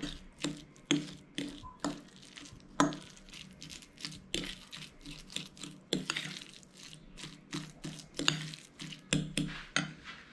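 Metal fork mashing avocado in a ceramic bowl, clinking and scraping against the bowl in irregular taps, about two a second.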